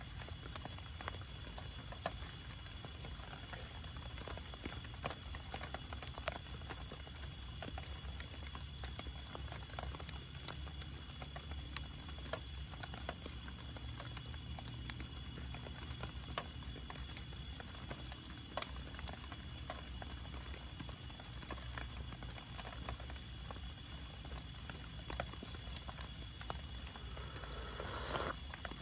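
A steady, high-pitched chorus of night insects, with scattered small clicks and a brief rustle near the end.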